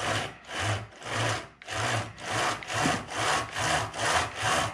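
Husqvarna chainsaw's skip-tooth chain pulled by hand along the bar in quick, even strokes, about two or three a second: a rasping scrape of the chain over the bar. Possibly a little grit and debris is in the bar groove.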